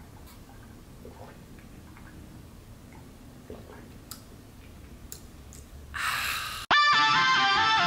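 Faint clicks and sipping as an iced matcha latte is drunk through a straw, then a short breathy exhale about six seconds in. Plucked guitar music cuts in abruptly about a second before the end.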